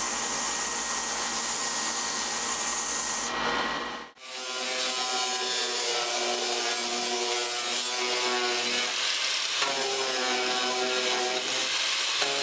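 Belt of a combination disc/belt sander abrading the bevelled lap of an edge-grain cedar plank. About four seconds in it cuts to a small angle grinder running against the plank's lap to remove material, a steady motor whine over the grinding noise.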